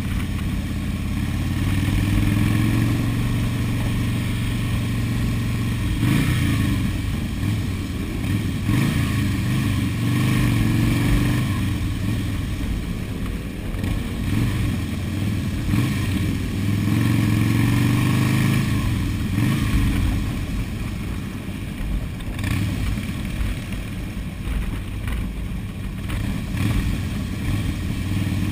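Motorcycle engines running under way in a group ride, heard from a helmet-mounted camera. The engine note rises and falls several times as the throttle changes.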